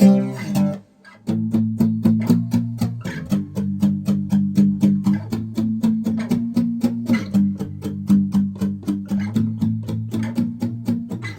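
Guitar strummed in a steady rhythm, about four strokes a second, playing the song's chord part, with a brief stop about a second in.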